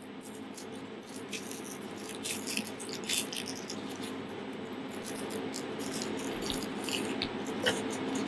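Dry, papery onion skin crackling and rustling as gloved hands peel it off a yellow onion: a scattering of small crisp clicks over a steady kitchen hum.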